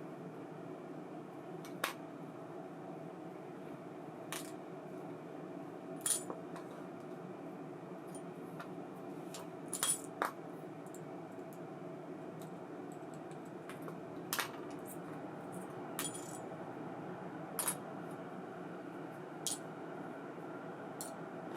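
Sharp little metallic clinks, about nine of them at irregular intervals of a second or two, with a quick double near the middle, over a steady low hum: small metal parts and tools of a baitcasting reel being handled and set down during servicing.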